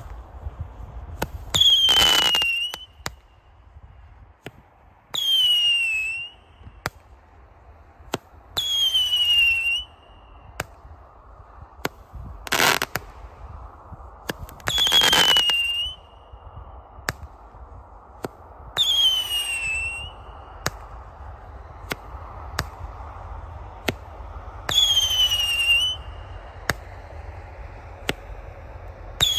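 Blue Hurricane 200-gram firework repeater cake firing its shots: a loud whistle, dropping slightly in pitch and lasting about a second, every few seconds, with scattered sharp cracks and pops between them. One heavy bang comes about halfway through.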